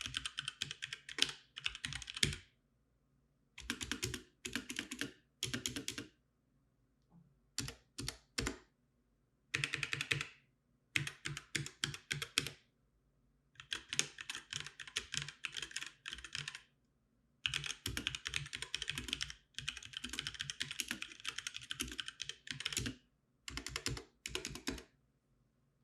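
Typing on a HyperX Alloy Origins 60 mechanical keyboard with HyperX Red linear switches: a fast run of light, quiet key clacks, in bursts of a second or two with short pauses between.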